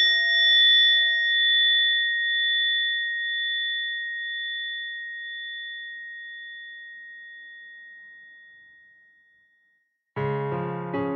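A single struck bell rings with a clear high tone and fades away slowly over about nine seconds, marking a pause between sections of the reading. Music comes back in near the end.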